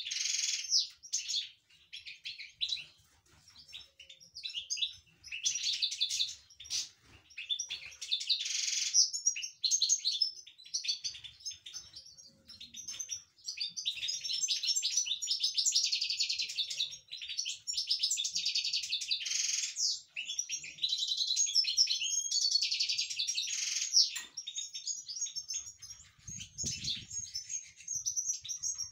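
European goldfinches singing: fast, high twittering song in long phrases broken by short pauses, the longest run in the second half.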